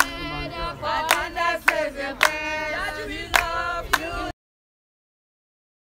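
A group of people singing together with hand claps at irregular intervals. The audio drops out to total silence about four seconds in.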